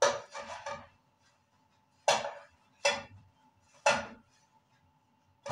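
Cooked gözleme flatbread being handled on a ceramic plate: a few short, soft taps and rustles about a second apart, over a faint steady hum.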